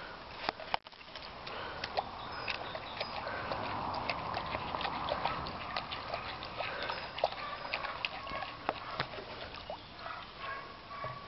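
Chow chow puppy lapping and slurping from a bowl of wet food, a run of many small irregular wet clicks and sloshes.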